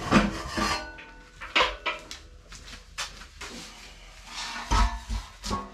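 Steel oven of a wall-tent wood stove being carried off and set down: a series of metal knocks and scrapes, a few of them ringing briefly.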